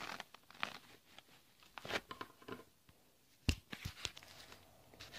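Faint handling noise: scattered clicks, taps and rustles as a small plastic toy figure is moved about by hand, with one sharper knock about three and a half seconds in.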